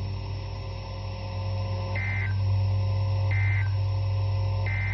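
Emergency Alert System end-of-message data burst: three short, identical buzzy bursts a little over a second apart, over a steady low hum. The bursts signal the end of the warning message.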